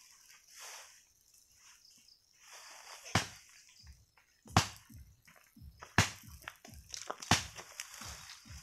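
Dry leaves and twigs scraping and rustling under a stick broom, in sharp strokes about every second and a half from about three seconds in.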